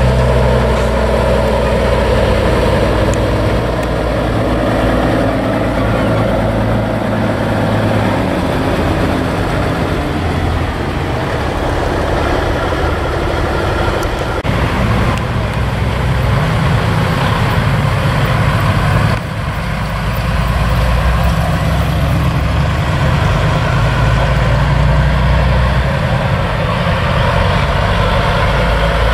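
Diesel semi-truck engines running as the trucks pass slowly in a convoy. The low engine drone shifts in pitch as one truck gives way to the next.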